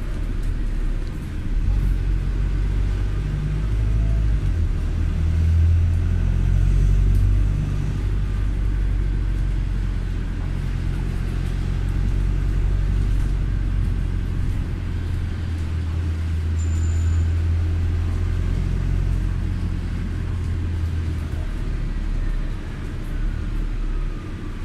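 Low, steady rumble of a motor vehicle on the move, swelling and easing a little now and then.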